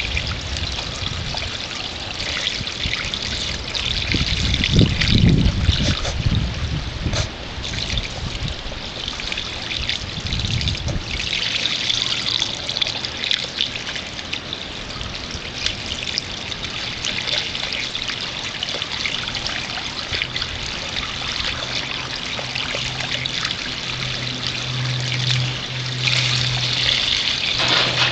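Water trickling and splashing from an open garden hose onto concrete, with puppies nosing and lapping at the stream. A low rumble comes in between about four and eleven seconds, and a low steady hum runs near the end.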